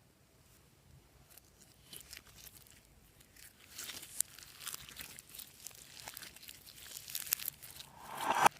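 Glossy slime being stretched and worked by hand: sticky crackles and tearing sounds, growing denser, then a louder swish that stops suddenly at the end.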